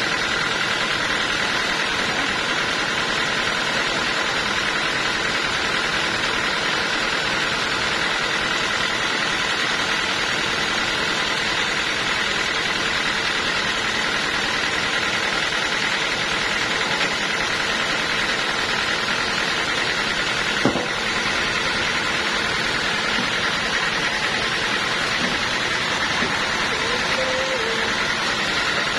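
Sawmill machinery running steadily: a constant mechanical drone with a held high tone. A single sharp knock comes about two-thirds of the way through.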